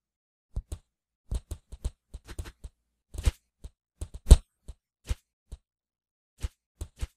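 A series of irregular light knocks and clicks, about twenty of them, the loudest about four seconds in.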